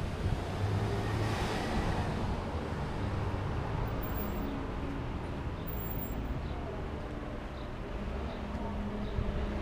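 Street traffic noise, a steady low rumble, with one vehicle passing about a second in.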